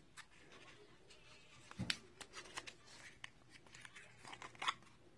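Faint clicks, scrapes and rustles of a liquid lipstick tube being slid out of its small cardboard box and handled, with a sharper knock about two seconds in and a few quick clicks near the end.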